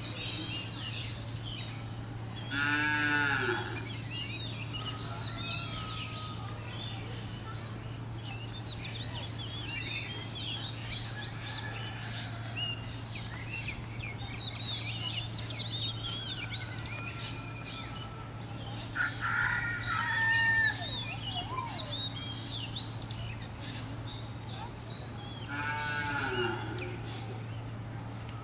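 Outdoor farm ambience: many small birds chirping throughout over a steady low hum. Louder farm-animal calls stand out, one about three seconds in and one near the end, each lasting about a second and falling in pitch, with another shorter call partway through.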